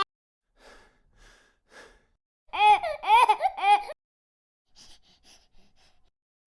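Human vocal sound-effect clips: a few faint short breaths, then a loud burst of laughter of about five rising-and-falling "ha" notes about halfway through, followed by faint breathy sounds.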